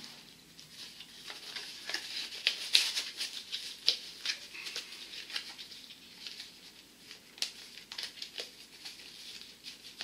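Packaging being handled as a small device is pushed back into a tight-fitting box insert: an irregular run of crinkling rustle and small sharp clicks.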